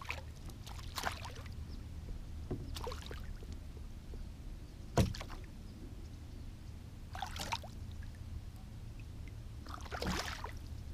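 A hooked crappie thrashing and splashing at the water's surface beside a kayak during the fight, in short splashes every second or two. A single sharp knock about five seconds in is the loudest sound.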